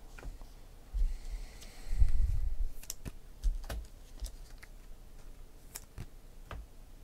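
Trading cards and packs being handled and set down on a table: scattered light taps and clicks, with a few low thumps about a second or two in.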